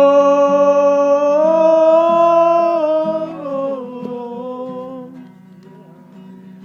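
A singer holding one long sung note over acoustic guitar. The note dips in pitch and fades out about four to five seconds in, leaving the guitar playing on its own.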